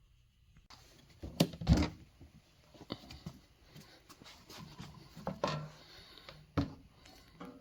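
A handful of separate wooden knocks and clunks, the loudest about two seconds in, with light rubbing and handling noise between them.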